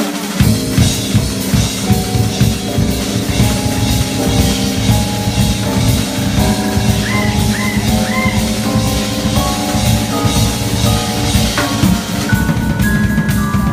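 Live band with a drum kit: kick drum and snare come in just after the start and keep up a steady groove under held melody notes, which bend upward in pitch a few times near the middle.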